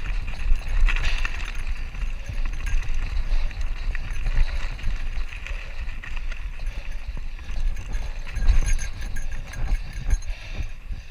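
Mountain bike rolling over a loose cobble and gravel trail, its tyres crunching and rattling over the rocks with many small irregular knocks, over a steady low rumble of wind on the camera microphone.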